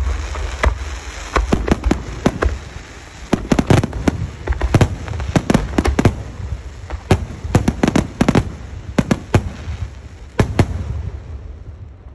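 Aerial fireworks going off: many sharp bangs in quick, irregular clusters over a low, continuous rumble. The bangs thin out and the rumble dies down near the end.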